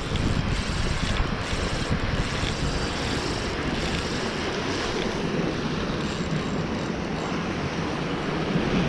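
Steady wind rumbling on the microphone over the wash of sea waves.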